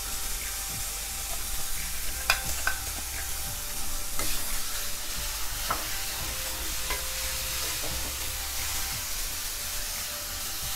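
Green peas and freshly ground green masala paste sizzling in oil in a nonstick kadhai, being fried while a spatula stirs and scrapes through them, with a few sharp clicks of the spatula against the pan.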